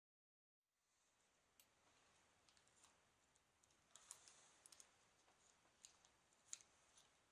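Faint, scattered small clicks and ticks of hand tools working at a tablet's cracked glass screen, a few sharper ticks bunched about four seconds in and again near the end.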